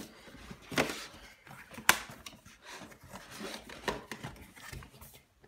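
Cardboard packaging being handled and opened: rubbing and scraping of the box with a few sharp knocks, the loudest about two seconds in.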